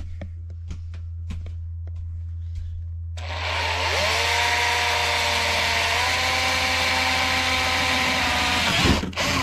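Cordless drill with a long bit boring through a wood-panelled wall. The motor spins up about three seconds in, steps up in pitch midway and stops near the end, over a steady low hum.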